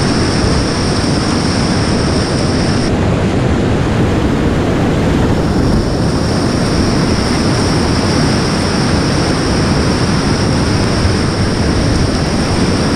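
Steady, loud roar of whitewater rapids pouring over rocks, heard from a kayak sitting in the rapid.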